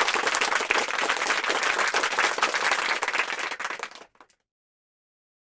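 Applause, a dense crackle of many hands clapping, fading out about four seconds in and then cutting to silence.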